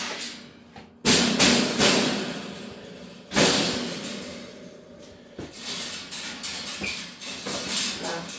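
Metal wire rat and ferret cage being knocked and shifted during assembly: three loud clanks, about a second in, just before two seconds and a little after three seconds, each trailing off in a rattling ring through the wire panels. Lighter taps and clicks follow in the last few seconds.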